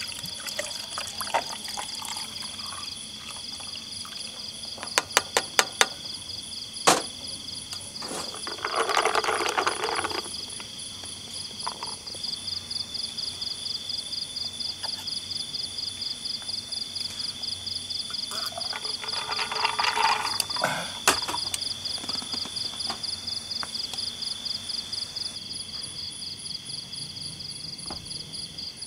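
Night insects trilling steadily, one of them in a fast pulsing chirp, with two bursts of frog calls lasting a second or two, about nine and twenty seconds in. A quick run of sharp clicks comes about five seconds in.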